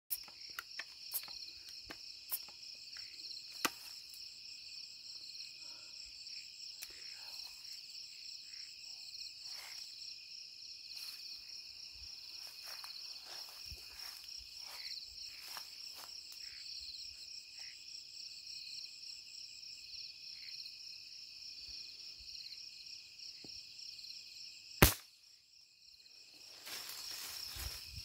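A steady, high, pulsing chirring chorus of night insects, with scattered faint clicks. About 25 s in there is one sharp loud click, then a short dip, and rustling near the end.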